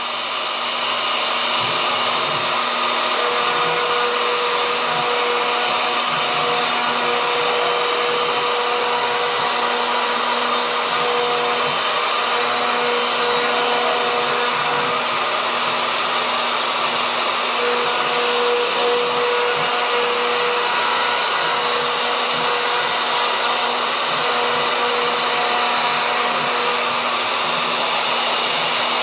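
CNC router spindle running steadily as its 60-degree V-bit engraves a wooden board in a pocket cleanup pass: a constant whine over a hiss, with some of the tones coming and going as the cut goes on.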